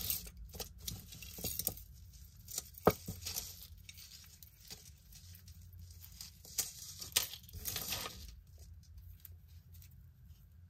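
Beaded necklaces and cord strands being handled and pulled apart on a cloth: faint rustling with scattered small clicks of beads and clasps.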